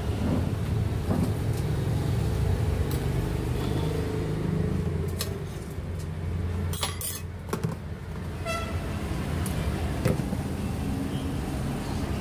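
Street-side ambience of a food stall: a steady low rumble of road traffic, with scattered metal clicks and a short tooting horn-like tone about eight seconds in.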